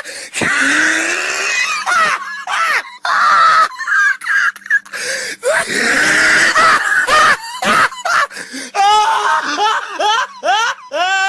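A person laughing hard and wheezing, high-pitched and breathy, breaking into quick repeated ha-ha pulses near the end.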